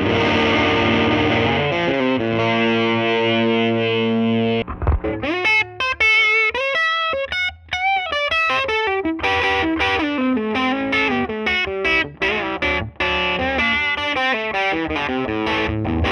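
Overdriven electric guitar played through a Gibson Falcon tube amp. A chord rings out for about five seconds, then a single-note lead line with string bends, then choppy chord riffing.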